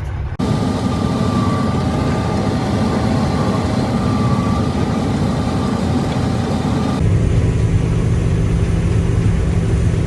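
Heavy farm machinery engine running steadily, the sound changing abruptly twice, about half a second in and again about seven seconds in.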